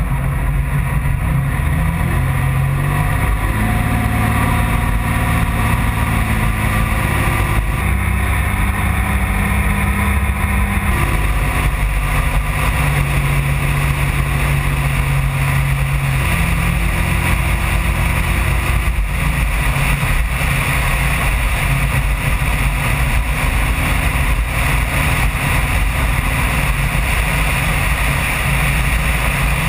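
A 1994 Camaro's rebuilt 3.4 L V6 running as the car drives, its note stepping up and down in pitch several times as the speed changes, over a steady rush of road and wind noise.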